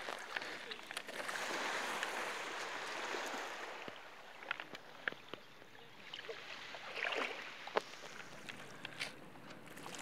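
Shallow sea water sloshing and lapping, with scattered small sharp splashes and drips. A louder wash of water swells over the first few seconds, then eases off.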